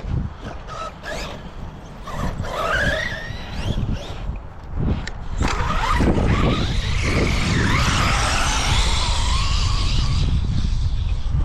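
Electric RC car running: a motor whine that glides up and down in pitch over a noisy rumble, which grows louder and steadier about halfway through.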